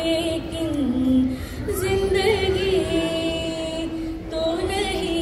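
A woman singing a Hindi film song alone into a handheld microphone, holding long, slightly wavering notes joined by short slides in pitch.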